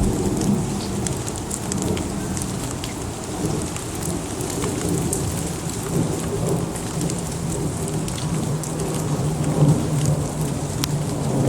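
Steady rain shower falling on surfaces, with scattered drops ticking and a low rumble underneath.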